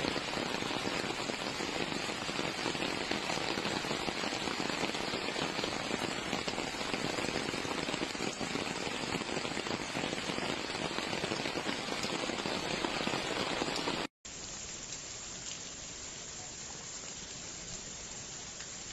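Heavy downpour: a steady, dense hiss of rain. About fourteen seconds in it cuts abruptly to a quieter, duller steady wash.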